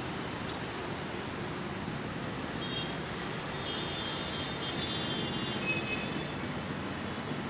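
Steady rumble of distant road traffic, with a few faint high-pitched tones around the middle.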